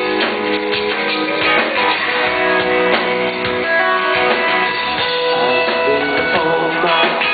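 Live rock band playing, with guitar to the fore. It is recorded from the crowd and sounds dull, with no treble.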